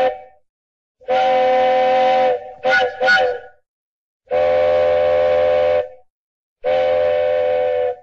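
Steam locomotive chime whistle of the Disneyland Railroad sounding a steady three-note chord. It gives one long blast, two quick short toots, then two more long blasts.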